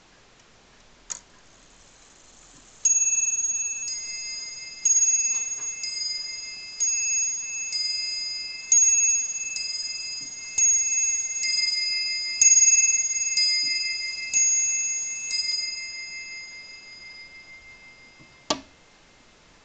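Boulle bracket clock's bim-bam strike sounding the hour: seven pairs of alternating high and low ringing tones, about one stroke a second, each pair a louder note then a softer one, ringing away near the end. A sharp click comes about a second in and another near the end.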